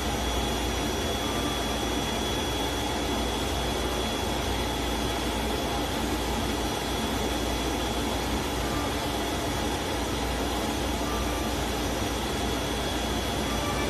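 CNC flatbed carton-cutting machine running: a steady rushing noise of air, typical of its vacuum hold-down blower, with a thin high whine over it.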